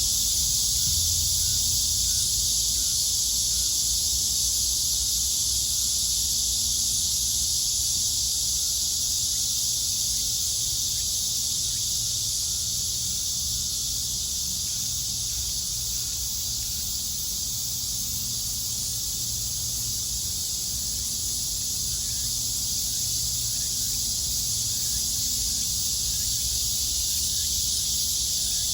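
A loud, steady chorus of cicadas buzzing without a break, with a low rumble underneath.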